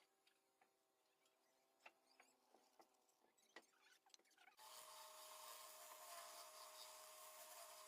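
Near silence: faint scattered ticks, then from about halfway a faint steady hiss with a thin steady tone.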